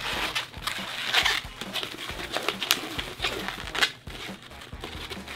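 Red 260 latex twisting balloons squeaking and rubbing against each other while one twisted seam is wound into another to lock the section in place. The squeaks and rubs are irregular, thickest in the first second or so.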